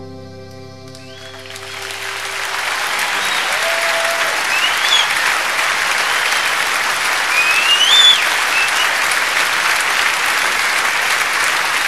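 The song's last chord, held on accordion and acoustic guitar, rings out and stops a couple of seconds in. Then a large audience breaks into sustained applause, with cheers and a few rising whistles.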